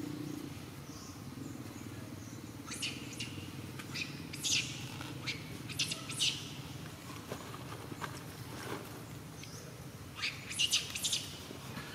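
Small birds chirping: short, high chirps in small clusters a few seconds apart, over a steady low hum.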